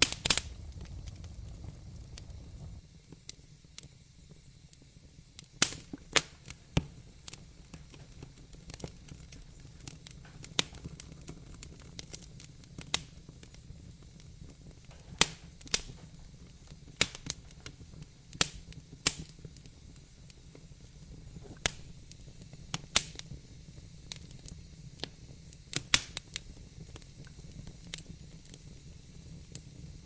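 Wood fire crackling in a fireplace: irregular sharp pops and snaps over a steady low hiss. A deeper rumble under it drops away about three seconds in.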